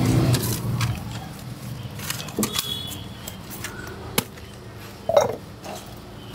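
A few sharp clinks of a stainless-steel mixing bowl and utensils as masala chaat is tossed and tipped onto a leaf plate, over a low steady background hum.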